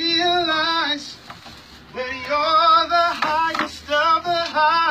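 A man singing unaccompanied in a high voice: one held note with vibrato, a short pause, then several quick phrases that bend up and down in runs.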